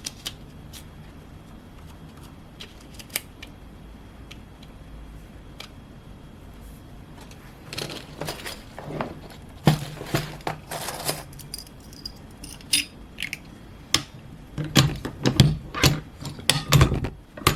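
Small metal pin-back buttons clinking and tapping against each other as they are handled and set out: a few sparse clicks at first, then irregular clusters of clicks and rattles, busiest near the end.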